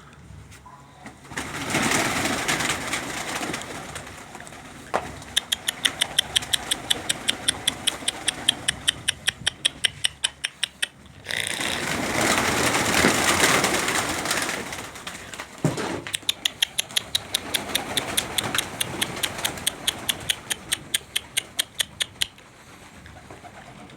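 Birds: two runs of sharp, rapid clicking, about five clicks a second, alternating with bursts of loud rushing noise.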